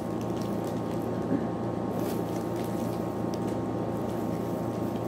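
A steady motor hum from a room appliance, with a few faint rustles and taps of plastic as pastry sheets are handled.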